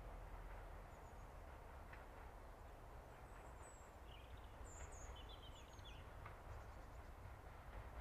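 Quiet countryside ambience: small birds chirping in short bursts around the middle, over a faint low rumble from a distant BR Class 33 diesel locomotive approaching along the line.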